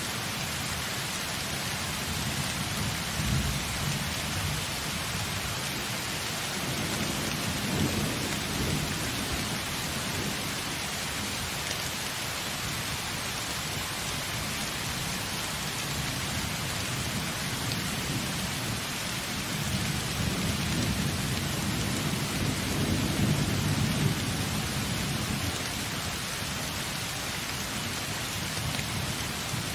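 Steady rain falling in a thunderstorm, with low rolling thunder swelling twice: a few seconds in and again about two-thirds of the way through.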